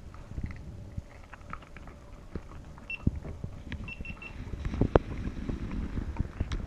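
Pembroke Welsh corgi chewing and crunching treats off the floor close to the microphone, an irregular run of clicking and snapping bites, the sharpest about three and five seconds in.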